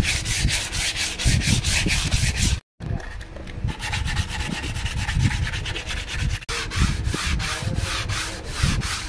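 Teak speargun stock being hand-sanded with 120-grit wet-and-dry sandpaper: quick back-and-forth scraping strokes, about four a second, with a brief silent break about two and a half seconds in.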